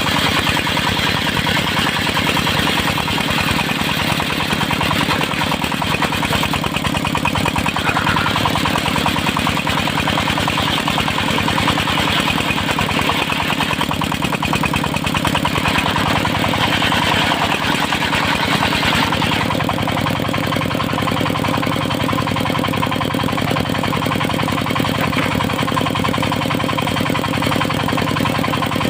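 Engine of a circular-saw sawmill running steadily at constant speed. About two-thirds of the way through, some of the higher hiss above it falls away.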